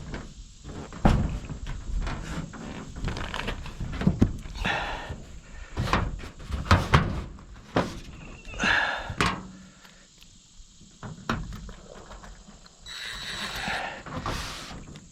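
Repeated knocks, thumps and clatter of work on a metal porch roof while roofing screws are being driven, with a few short, noisy bursts about four, eight and a half, and thirteen seconds in.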